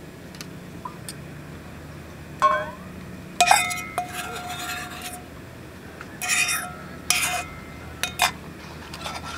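Metal camping cookware clinking against a cast iron skillet as broth is poured into it from a pot: several sharp clinks. The loudest comes about three and a half seconds in and rings on for over a second under the splash and hiss of the pouring liquid.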